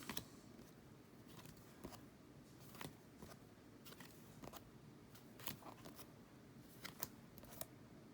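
Faint, scattered clicks and slides of trading cards being flipped through by hand, a short card sound every second or so.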